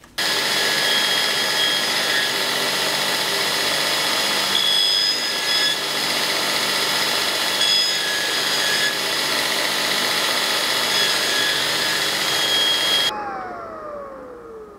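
Belt grinder running steadily as a knife blade is ground against the belt. Near the end it is switched off and its motor winds down with a falling whine.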